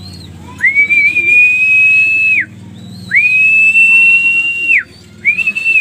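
A pigeon keeper's whistle call to bring a homing pigeon down into the loft: three long, steady, high whistled notes, each nearly two seconds long and ending in a quick drop in pitch.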